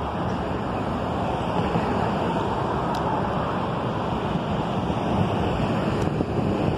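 Steady rushing of wind on the microphone mixed with road traffic, with two faint ticks.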